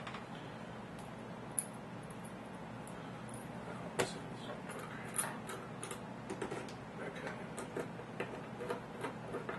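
Small sharp clicks and light metallic ticks from a screwdriver and tiny screws being handled while screws are fitted to an SSD. There is one loud click about four seconds in, then a run of quicker, lighter ticks through the second half, over a low steady room hum.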